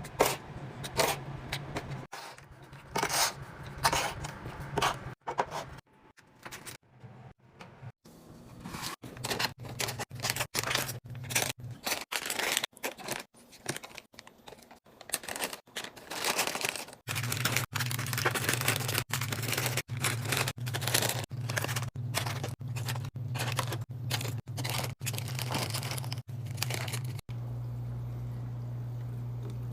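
Packaging and food containers being handled in quick succession: tearing, crinkling, scraping and sharp clicks and knocks, as items are unpacked and set into a refrigerator. A low steady hum runs underneath and is left on its own near the end.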